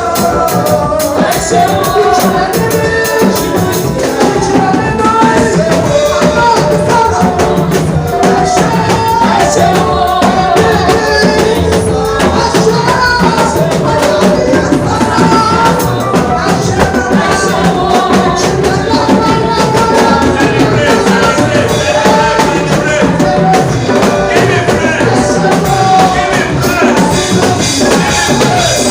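Church worship music: singing over a band with drum kit and tambourine, loud and steady.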